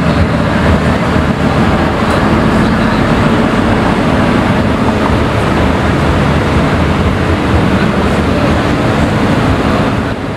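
Mercedes-AMG GT's V8 engine running steadily at low revs as the car drives slowly by.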